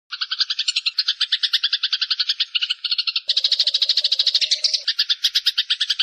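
Eurasian tree sparrows chirping in a rapid, continuous chatter of about ten chirps a second. The chatter grows denser about three seconds in.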